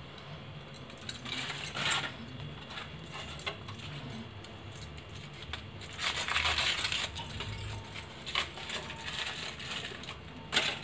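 Aluminium foil crinkling and rustling in several bursts as it is peeled off rolled bread snacks, with a sharp tap near the end.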